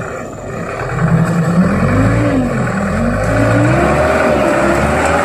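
Mitsubishi 4x4 truck's diesel engine revving under load as it climbs through deep mud, its pitch rising and falling with the throttle; it gets louder about a second in.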